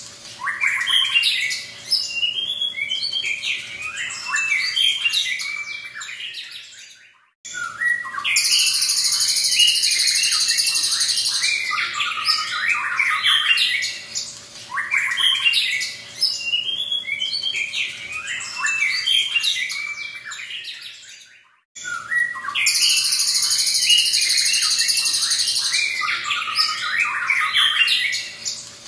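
A caged white-rumped shama (murai batu) singing a long, varied song of rapid whistled and chattering phrases. Twice the song holds a harsh, hissing buzz of about three seconds. The sound cuts out briefly twice.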